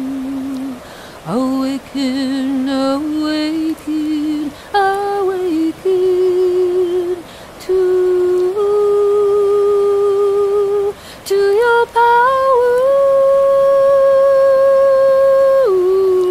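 A woman's solo voice singing wordless held notes, wavering on a few notes about two seconds in, then climbing in small steps to a long high note held for about three seconds near the end.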